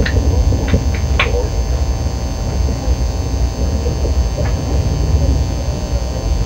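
Interior noise of a KTX train running, heard inside the passenger car: a steady low rumble. A few short high clicks or squeaks come in the first second and a half.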